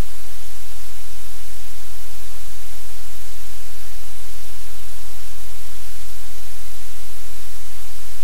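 Steady, loud static-like hiss with a low hum underneath, unchanging throughout.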